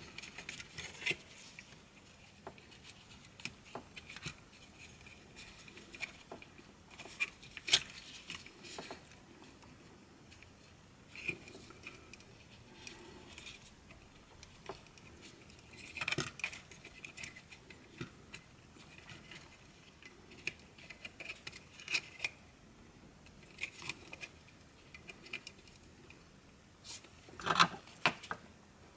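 Scattered small clicks, taps and rustles of gloved hands handling a plastic headphone earcup, its circuit board and thin wires, with a louder clatter of clicks near the end.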